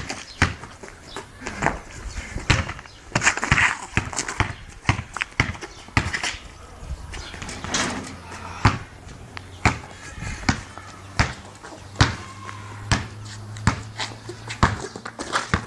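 Basketball dribbled on paved ground, a string of sharp bounces at an uneven pace.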